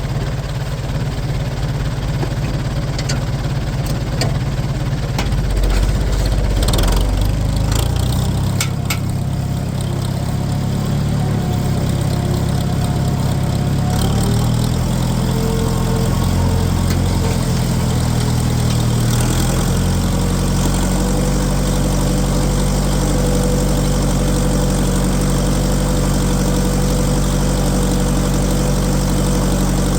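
Tractor engine running, its note shifting several times in the first half and then holding steady, with a few clicks early on.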